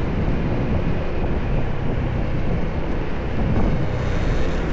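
Steady wind buffeting on the microphone over the low rumble and road noise of a moving vehicle.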